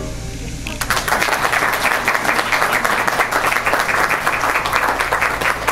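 The last piano chord dies away, then an audience breaks into applause about a second in, a dense steady clapping.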